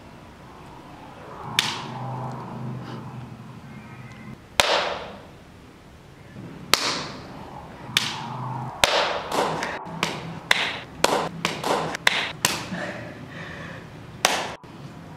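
A series of sharp hits, each with a short fading tail, at first a few seconds apart, then coming faster and faster, several a second, in the last few seconds.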